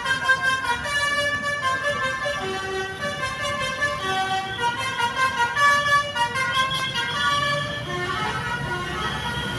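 Basuri V3 multi-tone 'telolet' horn playing a melody, loud pitched horn notes changing in quick succession.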